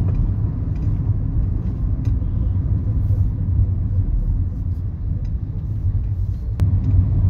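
Steady low rumble of a moving car's road and engine noise heard from inside the cabin, with a single sharp click near the end.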